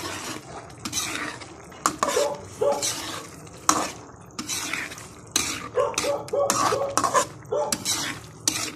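A cooking utensil scraping and knocking against a wok while stirring chunks of chayote and boiled eggs in a thickening sauce. The strokes come in irregular clusters, some with a brief metallic ring.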